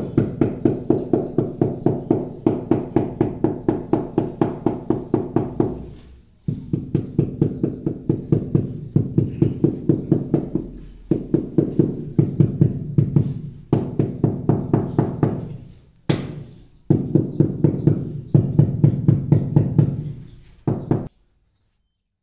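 Rubber mallet tapping ceramic floor tiles down into wet mortar to bed them level: about three dull, ringing knocks a second in runs of several seconds, with short pauses between runs, stopping abruptly near the end.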